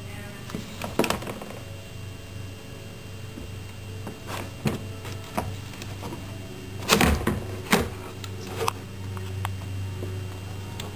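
Plastic clicks and knocks of a Play-Doh Fun Factory press as its handle is worked, a handful of separate knocks with the loudest about seven seconds in, over a steady low hum.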